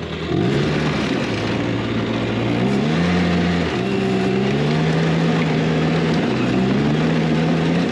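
Arctic Cat Kitty Cat kids' snowmobile engine running, its revs rising about half a second in and then going up and down several times as it is ridden.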